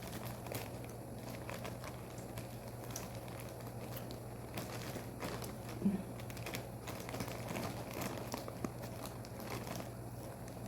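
Plastic wrapping rustling and crinkling in short, faint bursts as food is wrapped, over a low steady hum, with one short knock about six seconds in.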